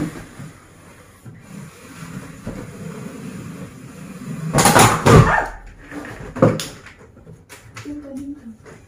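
A lightweight plastic wardrobe being pushed and shoved into place: a low scraping rumble, then two loud knocks of the cabinet about halfway through, and a few light clicks near the end.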